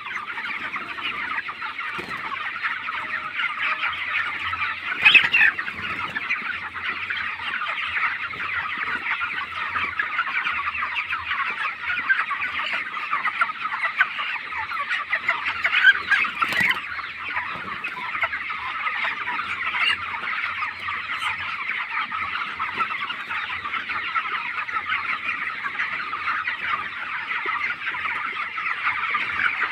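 A large flock of 25-day-old broiler chickens calling continuously, a dense overlapping chatter of peeps and clucks from many birds at once. A few louder single calls stand out now and then.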